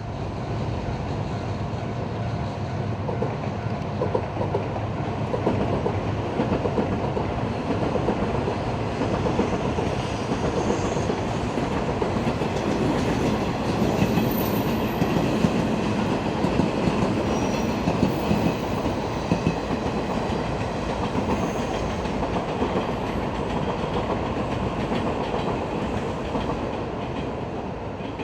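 JR West 115-series electric train running past, its wheels clattering over the rail joints with a steady rumble. It is loudest about halfway through and eases a little near the end.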